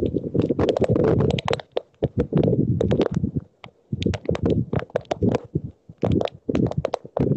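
Hail pelting down in a dense, irregular run of sharp ticks, with wind buffeting the microphone in gusts that drop away briefly a few times.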